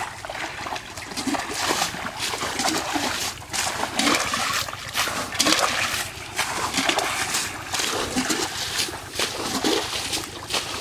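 Muddy water sloshing and splashing in repeated bursts as a metal bucket scoops water out of a shallow pool and flings it away, bailing the pool dry to catch fish. A few short low calls sound underneath.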